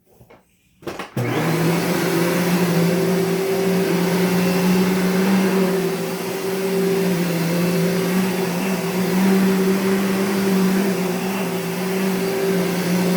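Dirt Devil Featherlite upright vacuum switched on about a second in and running loudly and steadily, its motor giving a strong steady hum over the rush of air.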